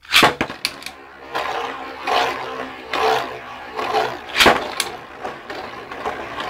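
Beyblade spinning tops launched into a plastic stadium, then whirring and grinding as they spin against the plastic, with sharp clacks as they collide, the loudest about four and a half seconds in.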